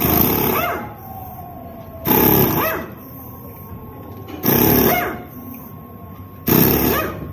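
Pneumatic impact wrench hammering rear-wheel lug nuts loose: four loud bursts of under a second each, about two seconds apart, with a whine that rises and falls in each burst.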